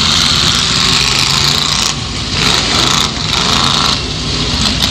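1979 Ford Thunderbird's 351M V8 running hard, heard from inside the stripped derby car's cab as it drives. The sound dips briefly about two, three and four seconds in.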